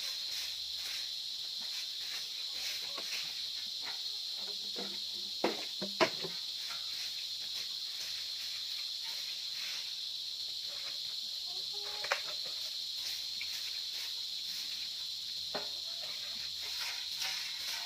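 A steady, high-pitched insect drone runs throughout. Over it come light scratching strokes of a soft broom sweeping dry leaves on bare dirt, with a few sharp knocks about five to six seconds in and again about twelve seconds in.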